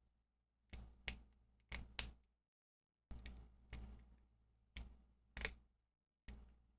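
Lock picks clicking against the sliders inside an On Guard bicycle U-lock being picked: short sharp metal clicks, about ten of them, irregular and often in quick pairs.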